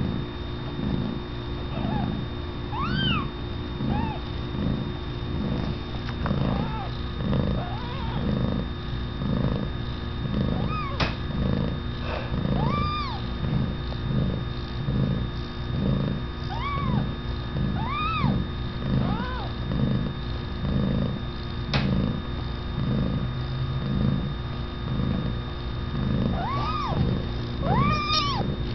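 A nursing mother cat purring in a steady rhythmic pulse, with newborn kittens letting out short, high-pitched squeaky mews now and then, several of them close together near the end.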